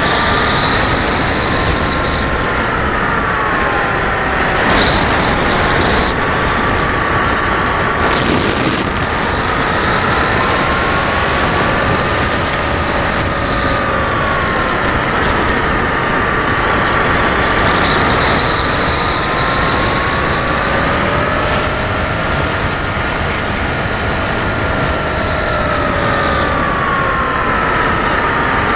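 Onboard sound of an FPV radio-controlled model aircraft in flight: the motor and propeller whine, its pitch drifting slowly up and down, over a heavy rush of wind on the onboard camera's microphone.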